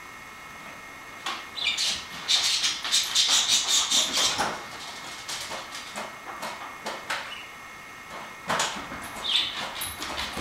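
Dogs scuffling and moving about: bursts of quick clicking and scrabbling, heaviest about two to four seconds in and again near the end.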